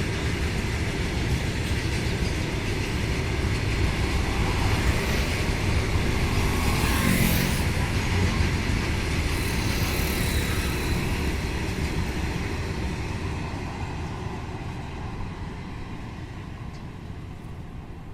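Heavily loaded freight train of BCN covered wagons rolling past behind a GE WDG4G diesel locomotive: a steady low rumble that swells about seven seconds in and then fades away toward the end.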